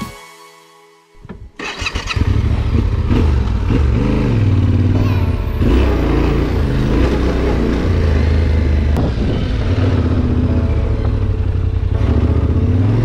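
Yamaha Ténéré 700's parallel-twin engine running as the motorcycle is ridden along a dirt track, the revs rising and falling with the throttle. The engine sound comes in about a second and a half in, after a near-silent start.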